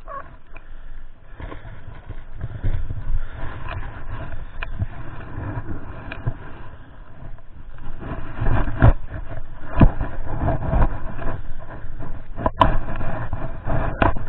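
Wind buffeting the microphone with an irregular low rumble, mixed with scattered clicks, knocks and scrapes of handling close to the microphone. The rumble and knocks grow stronger in the second half.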